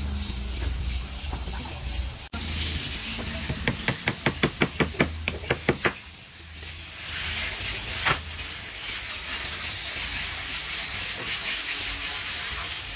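Work noise in a wooden-boat shipyard: about halfway through, a fast, even run of about a dozen sharp knocks, some six a second, followed by a steady hiss.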